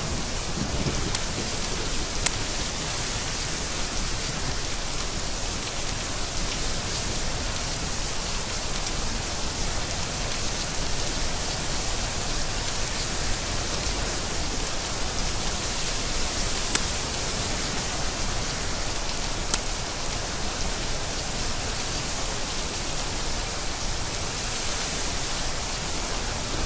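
Steady, even rain, with a few sharp, louder drops ticking close by about one, two, seventeen and twenty seconds in.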